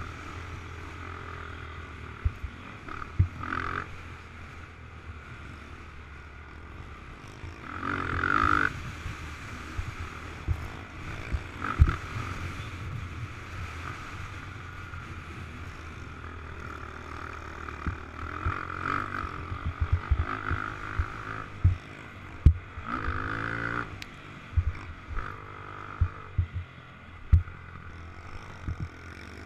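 Sport quad's engine revving up and down under riding load, heard through wind noise on a helmet-mounted camera, with frequent short low thumps.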